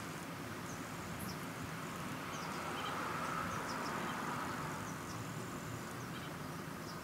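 Steady outdoor background noise with faint, scattered short high chirps; the UV curing light held to the hood makes no sound of its own.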